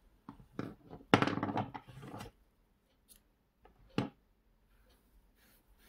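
A flurry of handling clicks and rustles as hands move tools and yarn on a wooden table, followed about four seconds in by one sharp snip of small scissors cutting the crochet yarn.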